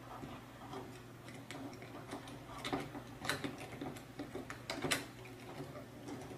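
Small hardware clicking and tapping against acrylic robot-arm panels as nuts and bolts are handled and fitted by hand: light irregular clicks, with two sharper clacks around the middle and about five seconds in.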